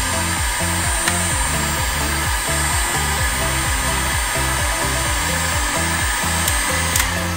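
Bosch GHG 18-60 heat gun running, its fan blowing with a steady hiss and a thin high whine, over electronic background music with a repeating bass line. A click comes near the end.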